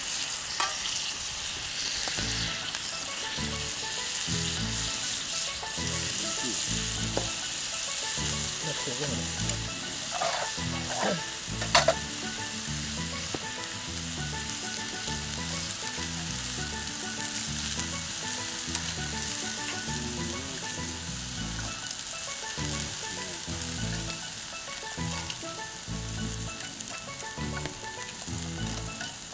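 Boiled soba noodles sizzling steadily as they fry on a hot iron grill plate, moved and spread with chopsticks. A sharp clack stands out about twelve seconds in.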